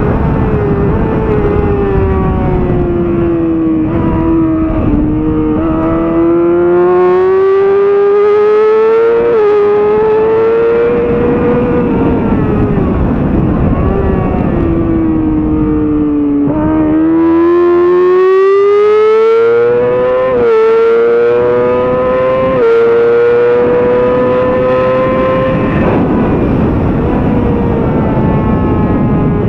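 2007 Yamaha R6's inline-four engine at high revs, pitch climbing under acceleration and dropping sharply at each upshift, with a pair of quick shifts past the middle. Twice the revs sink in long falls while slowing for corners. A steady rush of wind and road noise runs under it.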